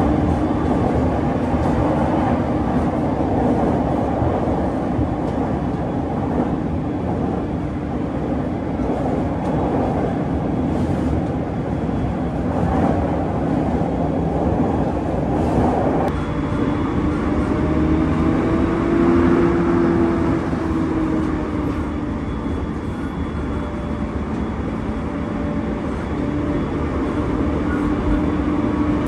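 Electric commuter train running at speed, heard from inside the passenger car: a steady rumble of wheels on rail, fuller while crossing a steel truss bridge. About sixteen seconds in the rumble thins, and a motor whine rises and falls.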